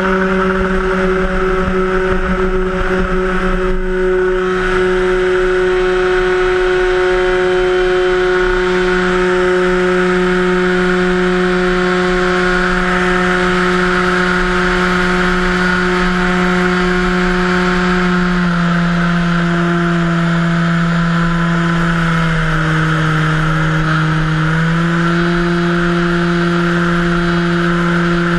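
Electric motor and propeller of an RC model Cessna 182 on floats, running at high throttle in flight: a loud, steady, pitched buzz heard from a camera on the airframe. Its pitch steps down about two-thirds through and again a few seconds later, then climbs back up near the end as the throttle is eased and reopened.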